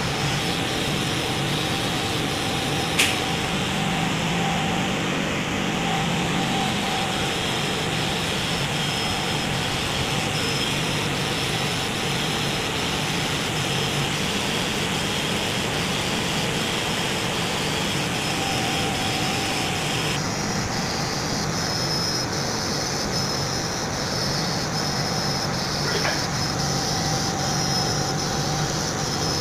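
CO2 laser engraving machine running as it engraves leather: a steady mechanical whir, with a sharp click about three seconds in.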